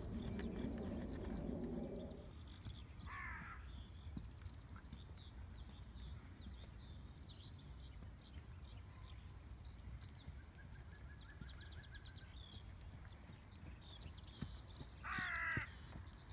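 Faint outdoor ambience of small birds chirping, with a louder wavering call falling in pitch about three seconds in and again, louder, near the end. A low hum stops about two seconds in.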